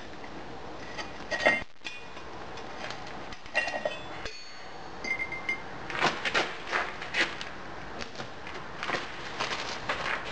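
Metal clinks as a cast iron ingot and tools are handled on a steel bar, one ringing briefly. From about six seconds in comes a quick run of hammer blows on the grey iron ingot, breaking it open to check the fracture for chill.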